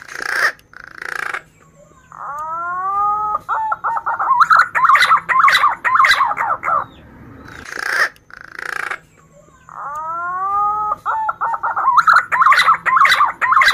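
Male punai daun (green pigeon) singing two long whistled phrases, each opening with a few rising notes and breaking into a fast run of repeated notes. Short noisy bursts come near the start and between the phrases.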